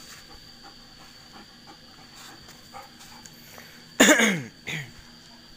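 A dog gives two loud, sharp calls about four seconds in, each dropping quickly in pitch, the first longer than the second.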